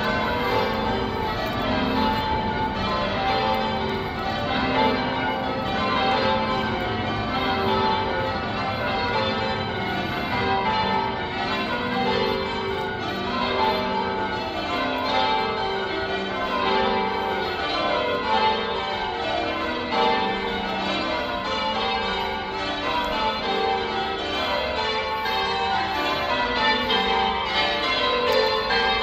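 Church tower bells being change-rung: a ring of bells struck one after another in a continuous, even rhythm, each row of strikes stepping down in pitch from the highest bell to the lowest.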